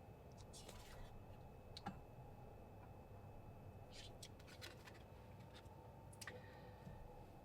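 Faint, scattered rustles and clicks of tarot cards being handled, over near-silent room tone.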